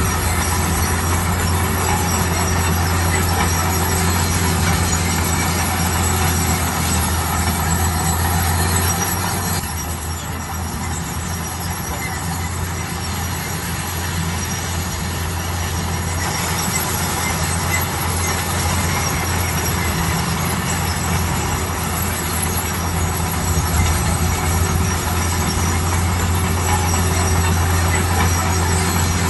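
Bulldozer working: its diesel engine runs steadily under a constant low hum, with metallic clatter and squeal from the tracks. The clatter eases off about ten seconds in and picks back up around sixteen seconds.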